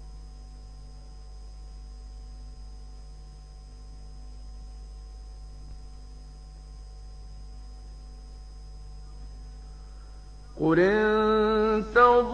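Steady electrical hum of an old recording during a pause in Quran recitation, then near the end a male reciter resumes, chanting the word "Qul" in long melodic tajwid style, much louder than the hum.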